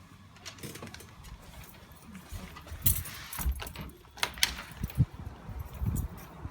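Small metal objects jangling in short bursts, with a few sharp clicks and low knocks; the loudest clicks come about three and four and a half seconds in.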